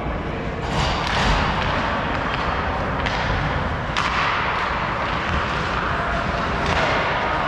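Ice hockey play in a rink: a steady hiss of skates on the ice, broken by about four sharp knocks of puck and sticks, the loudest about four seconds in.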